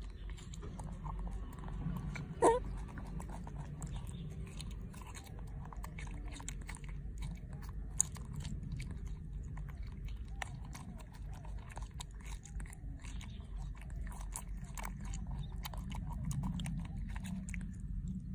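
Young macaque monkey chewing peeled lychees, with wet, clicking mouth and lip-smacking sounds. There is one short, loud rising squeak about two and a half seconds in, and a sharp click near the eight-second mark.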